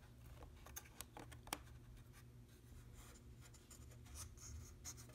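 Faint rubbing and scraping of a small wooden wedge being worked by hand into place across a wooden bridge bar over the stretched stator wires, with a few light clicks in the first couple of seconds.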